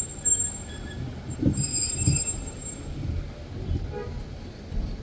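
Street traffic rumble with a high-pitched metallic squeal about one and a half to two and a half seconds in.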